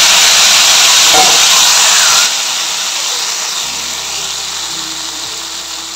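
Loud sizzling of a hot-oil tadka (tempering of whole red chillies, garlic, curry leaves and cumin) poured onto karhi. The sizzle drops sharply about two seconds in and goes on more quietly.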